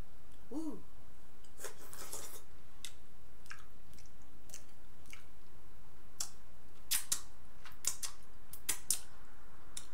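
Close-up eating sounds from a seafood boil eaten by hand. A wet crackle about two seconds in as the seafood is handled in sauce, then a run of sharp wet clicks and lip smacks while chewing near the end.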